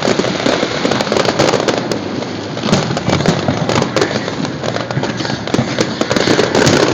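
Aerial fireworks display: a dense, continuous barrage of bangs and crackling.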